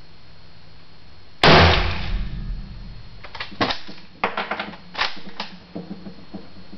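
A single shot from a La Coruña FR8 bolt-action rifle in 7.62 NATO about one and a half seconds in, ringing briefly in the small room. About two seconds later comes a quick run of metallic clacks as the bolt is worked to eject the spent case and chamber the next round.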